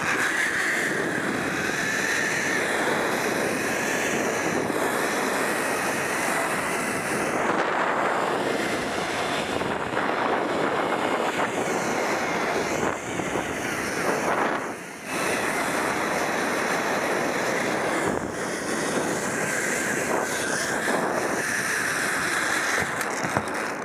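Zip-line trolley pulleys running along a steel cable during a ride, a steady rushing whir with a high whine, mixed with wind buffeting the microphone.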